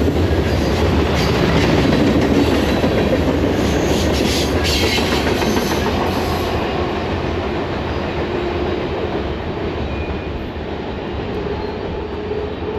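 Freight train of covered hopper cars rolling past on the rails. The sound slowly grows fainter, losing its high end about six seconds in as the end of the train goes by and it moves away.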